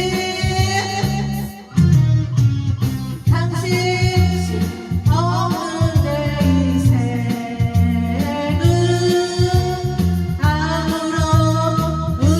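A song with a sung vocal melody over a band accompaniment of guitar and bass with a steady beat. There is a short break in the sound about two seconds in.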